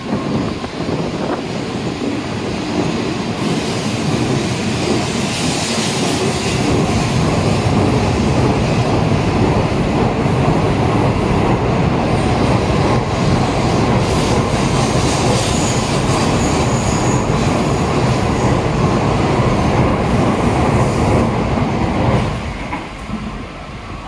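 Tokaido Shinkansen train moving along the station platform: a loud, steady rush of wheel and running noise that builds over the first few seconds, holds, and drops away sharply about two seconds before the end.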